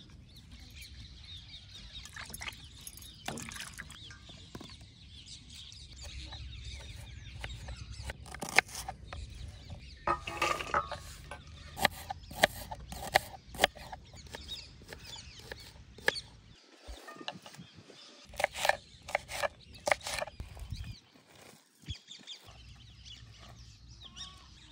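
A knife cutting onions on a wooden chopping board in sharp, irregular taps, with hens clucking in the background.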